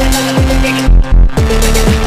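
House phonk electronic track: pitch-dropping kick drums about twice a second under steady synth notes and ticking hi-hats. About a second in, the high end briefly drops out and two heavy bass hits land before the beat returns.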